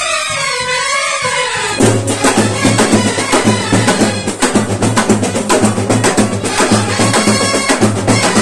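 Brass band playing: a trumpet and trombone line for the first couple of seconds, then a fast, loud pattern on stick-played marching drums comes in and carries on to the end.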